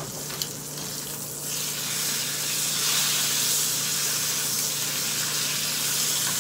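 Bacon frying in hot oil, a steady sizzling hiss that gets louder about two seconds in as the strips are turned over with metal tongs, with a single click of the tongs near the start. The oil is running very hot and spattering.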